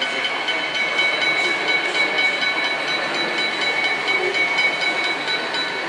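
O-scale (1/43) model diesel shunting locomotive running slowly with a wagon, giving a steady train-like running sound: several steady high whine tones with faint regular ticking, over a general hall hubbub.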